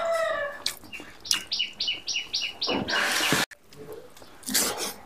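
The tail of a rooster's crow, followed by a small bird giving a quick run of about six high chirps. A loud burst of noise cuts off suddenly at about three and a half seconds, and a shorter burst of noise comes about a second later.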